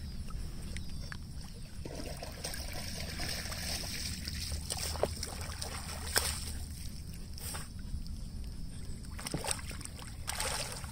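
Lake water sloshing and splashing around a swimming husky, with a few short sharp splashes over a steady low rumble.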